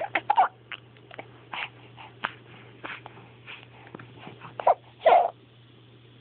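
A rapid run of hiccups: short sharp catches at uneven gaps of about half a second, the loudest about five seconds in.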